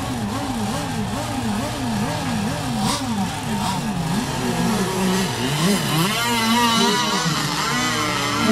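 Several radio-controlled racing boat engines revving up and down over and over, about twice a second. A higher, wavering engine whine joins about six seconds in.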